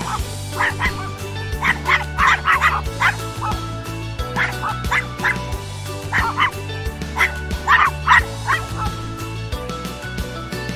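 A dog barking in short quick clusters of two to four barks, over steady background music.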